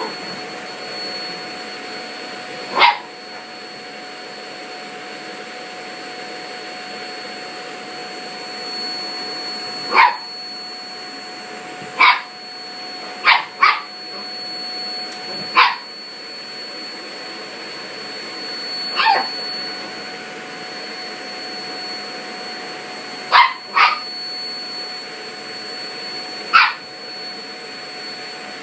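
Toy poodle barking at a running vacuum cleaner: about ten sharp barks, single or in quick pairs, spaced irregularly over the machine's steady whirring drone.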